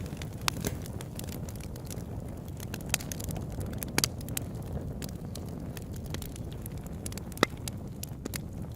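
Wood campfire burning with a steady low rumble of flames and scattered sharp crackles and pops, the loudest pop about seven seconds in.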